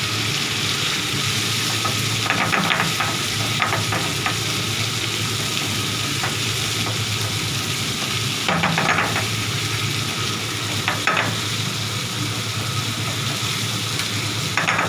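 Tomato marinara sauce sizzling in a frying pan while a wooden spoon stirs it, scraping across the pan in several short strokes.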